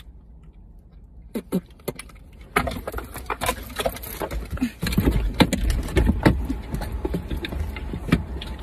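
Knocks, clicks and low thumps inside a car as two people scramble out of the front seats. It starts about a second and a half in and grows busier in the second half.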